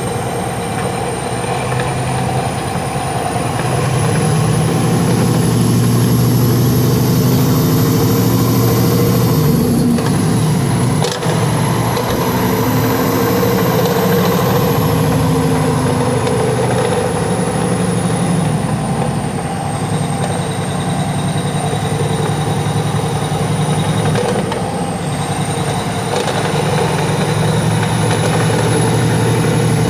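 Semi truck's diesel engine running steadily, its pitch lifting a little about four seconds in and dipping briefly twice later, with a thin high whistle that slowly drifts up and down.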